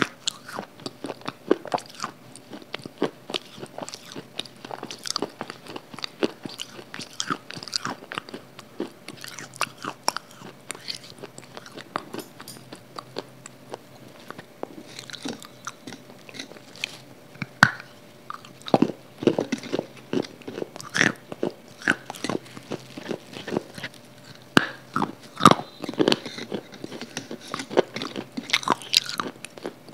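Close-miked biting and crunchy chewing of a firm white food: a steady run of crisp crunches, with several louder bites in the second half.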